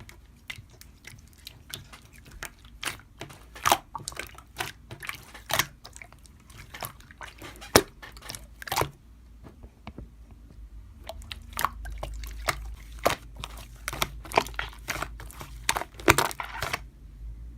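Slime being squished and pressed by hand, making a run of irregular wet clicks and pops.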